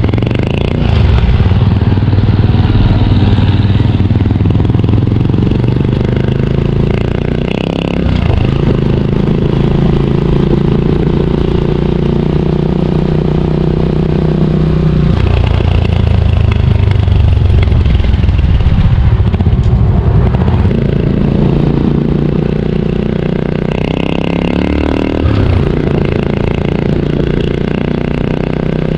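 Honda TMX125 Alpha's single-cylinder four-stroke engine running through a stainless chicken-pipe exhaust while the bike is ridden. The engine note is loud and continuous, and its pitch falls and climbs again several times.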